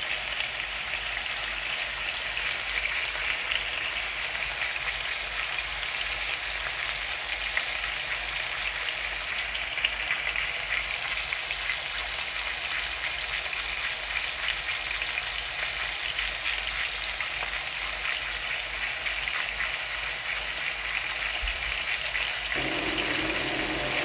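Chicken fillets shallow-frying in a little oil in a frying pan: a steady sizzle with fine crackling. A second, lower noise joins near the end.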